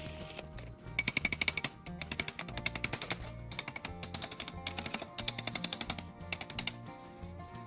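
Background music with five short bursts of rapid clicking strikes, about a dozen or more a second, each burst lasting under a second.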